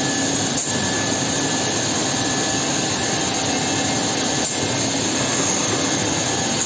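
Holztek HT-6SD-2H six-sided CNC drilling machine running with its dust extraction on: a steady rush of air with a faint steady whine, and two faint knocks, about half a second in and again at about four and a half seconds.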